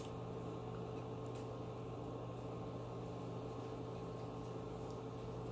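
Room tone: a steady low electrical hum over a faint hiss.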